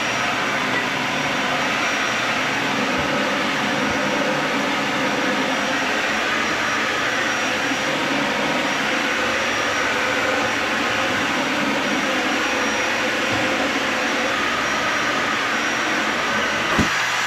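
Dyson Ball Animal 3 upright vacuum cleaner running steadily while vacuuming carpet, with a short knock near the end.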